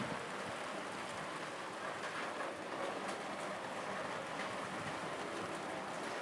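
Heavy rain falling steadily in a storm, an even hiss with scattered drop ticks.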